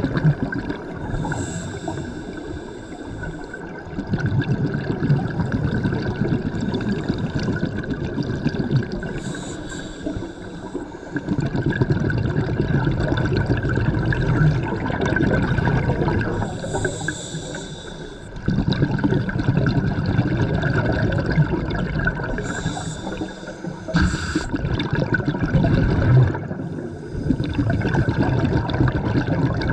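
Scuba diver breathing through a regulator underwater, about four slow breaths: a hiss on each inhale, then a low rumble of exhaled bubbles.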